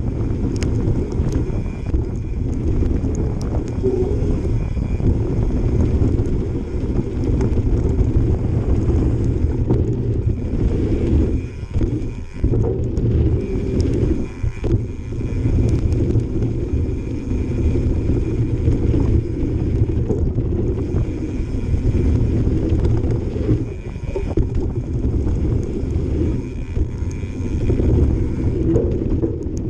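Mountain bike descending a rough trail: the rear freehub buzzes in spells as the bike coasts, over a steady low rumble of tyres and wind, with scattered knocks and rattles from bumps.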